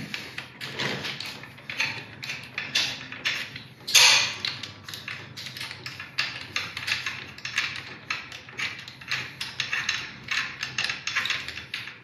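Ratchet wrench clicking in short irregular runs as a dirt bike's oil drain bolt is unscrewed, with one louder knock about four seconds in.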